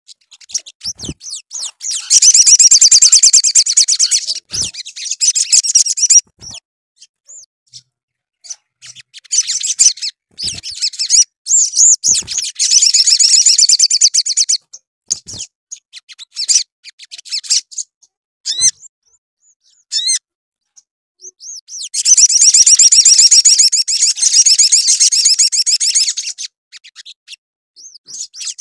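Male olive-backed sunbird in full song: three long bouts of rapid, high-pitched trilling, with short chirps between. This is the vigorous 'gacor' song used to provoke other sunbirds.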